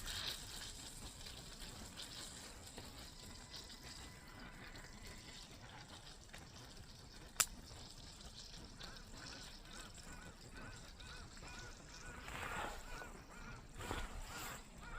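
Faint bird calls: a run of short, evenly repeated calls starting about nine seconds in, with a single sharp click a little before them.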